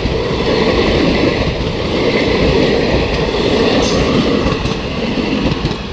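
ICF Utkrisht passenger coaches of an express train rolling past at speed: a loud, dense rumble of steel wheels on rail. It falls off sharply near the end.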